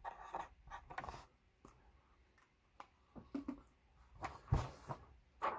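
A series of light clicks, taps and rustles, with a duller knock about four and a half seconds in.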